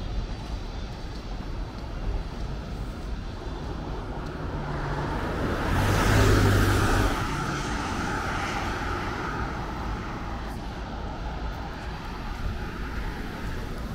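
A motor vehicle drives past close by, its engine and tyre noise swelling to a peak about six seconds in and then fading, over steady street noise.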